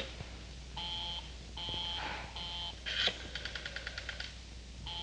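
Telephone busy signal heard over the line: a steady two-note beep that sounds for about half a second, pauses, and repeats. A run of rapid clicks, about ten a second, breaks in about three seconds in.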